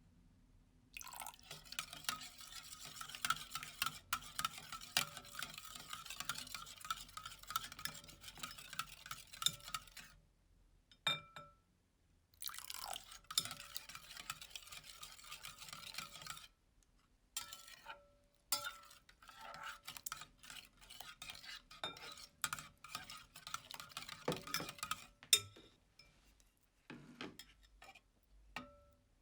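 A clear slime mixture being stirred in a bowl: wet, crackly scraping and clicking, in three long runs broken by short silences, with a few single clicks in between.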